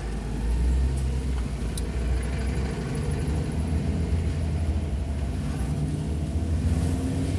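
Car engine and road noise heard from inside the cabin while driving slowly: a steady low rumble.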